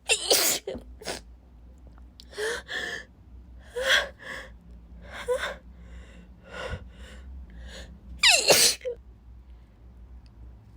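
A woman sneezing during a sneezing fit. One sneeze comes right at the start and a louder one about eight seconds in, with a run of short, pitched, gasping breaths building up between them.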